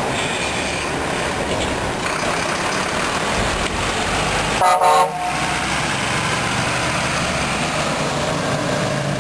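Mercedes-Benz Atego box truck's diesel engine running as it drives past at close range. It gives one short horn toot about halfway through, the loudest sound here.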